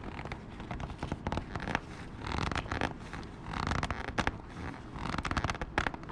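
Ratchet wrench clicking as a fastener on the motorcycle is tightened, in three short runs of rapid clicks.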